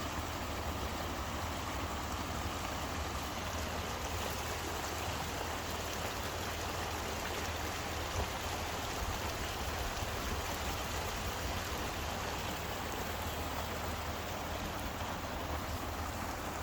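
Rain-swollen creek running, a steady rushing of water with no let-up.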